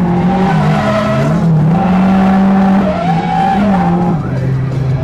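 Nissan 180SX's engine heard from inside the cabin, held high in the revs through a drift. The pitch dips briefly and comes back about a second and a half in, peaks in the middle and drops off a little after four seconds, with tyre skid noise over it mid-slide.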